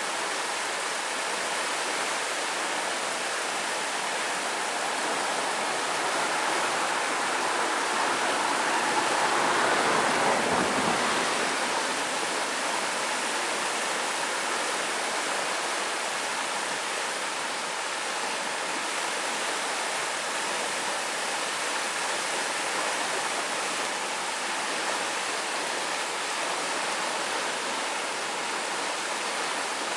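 Muddy, swollen river in high water rushing and splashing over rocks, a steady sound of running water that swells a little around ten seconds in.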